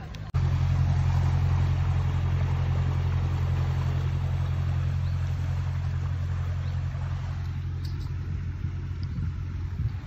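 Engine of a canal boat passing close by: a steady low hum that starts abruptly about a third of a second in and slowly fades. A few light knocks near the end.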